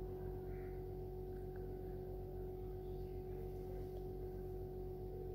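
A steady low hum with a constant mid-pitched tone, and faint scrapes of a metal spatula stirring chopped onions in an aluminium kadai.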